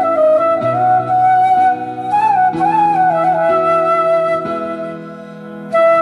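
Background music: a slow flute melody, with a little waver in the held notes, over a soft changing accompaniment. It dies down for a moment near the end and comes back in.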